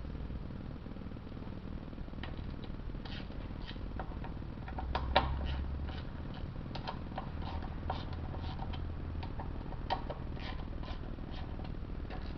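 Irregular metallic clicks and ticks of a hand ratchet on the 10 mm oil-pan bolts of a BMW 5L40E transmission as the bolts are checked and loosened. A sharper clack comes about five seconds in and another near ten seconds.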